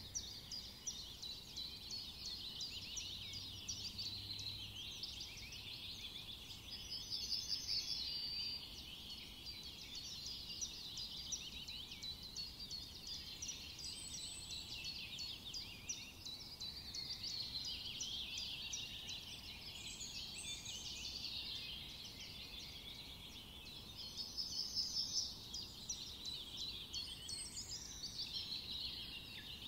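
Faint, dense chorus of rapid high-pitched chirps and calls from small animals, with a few louder calls rising out of it twice.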